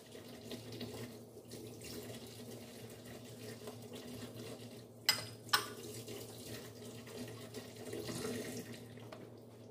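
Kitchen tap running into a sink while dishes are rinsed, with two sharp clinks of crockery about five seconds in, half a second apart.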